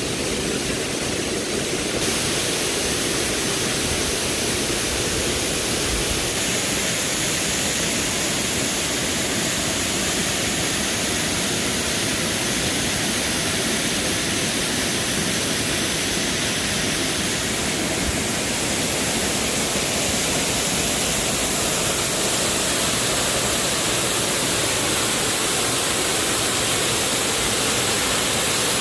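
Steady rushing water noise, even and unbroken, with no distinct events.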